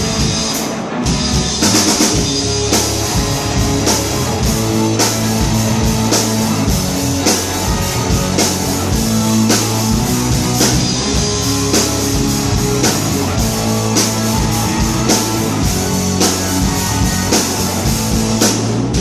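Live rock band playing the instrumental intro of a song: a drum kit keeping a steady beat under guitar and bass.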